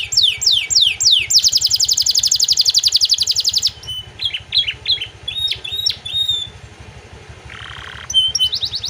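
Domestic canary singing a varied, full song that carries phrases taken from prinias: a run of quick down-slurred whistles, then a long rapid trill, then short separate chirps and a brief buzzy note, with another trill starting near the end.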